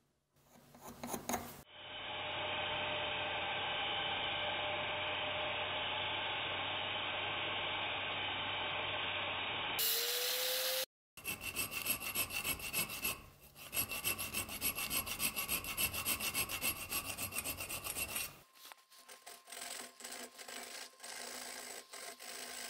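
A steady mechanical noise runs for the first several seconds and cuts off sharply. Then a hand file rasps back and forth across the edge of a steel knife blank clamped in a vise, in quick repeated strokes that turn softer for the last few seconds.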